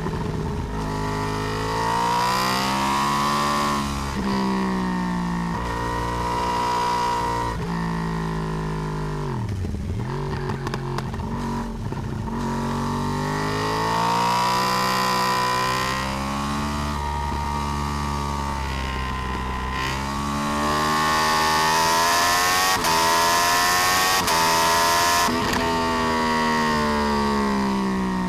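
Yamaha R1 (RN22) crossplane inline-four ridden hard, heard from a camera mounted on the swingarm. The engine note climbs again and again through acceleration runs and falls away between them, dropping deepest about ten seconds in and running loudest in the last third.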